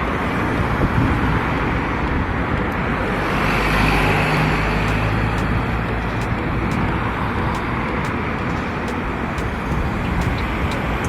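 Steady road and traffic noise of a car on the move: a continuous rumble with a low engine hum.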